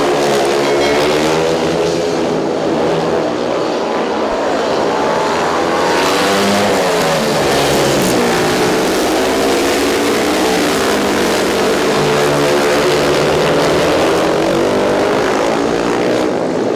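Speedway motorcycles' 500cc single-cylinder methanol engines racing round a dirt oval, loud throughout. Their pitch keeps rising and falling as the riders throttle through the turns and down the straights.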